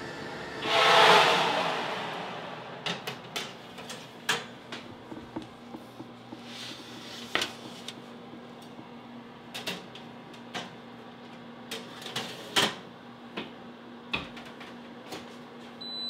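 Metal baking trays clattering and knocking as they are handled and slid into a Unox Bakerlux convection oven, after a loud rush of noise about a second in. The oven's fan hums steadily under the knocks.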